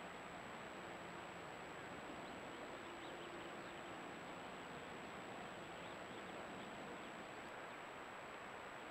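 Steady hiss from a trail camera's microphone with a thin, high-pitched electronic whine; no distinct animal call or footstep stands out.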